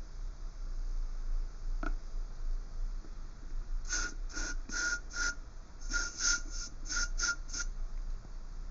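Bod Man Body Heat aerosol body spray being sprayed into a bottle: about ten short hissing sprays with a slight whistle, in two quick runs starting about four seconds in.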